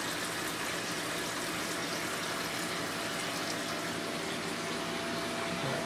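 Steady rush of circulating water from a 250-gallon reef aquarium system, with a faint steady hum.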